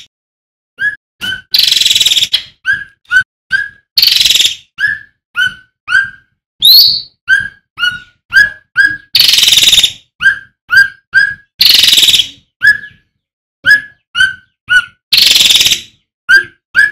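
Male cucak ranting (cucak rante) singing: short, sharp calls repeated about twice a second, broken every couple of seconds by longer, louder, harsh rasping phrases.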